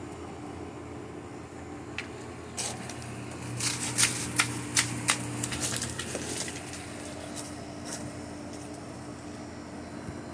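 Burning cardboard and paper crackling, with a cluster of sharp pops about two to six seconds in, over a steady low hum.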